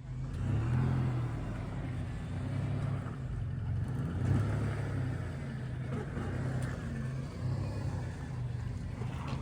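Off-road vehicle's engine running at low revs, a low rumble that swells and eases.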